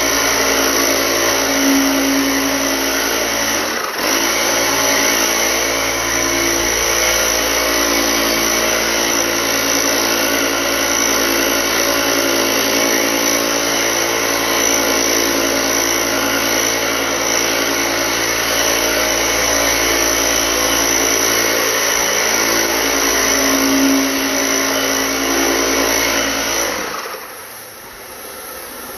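Motor-driven disinfectant sprayer running steadily, with a brief dip about four seconds in, then shutting off shortly before the end.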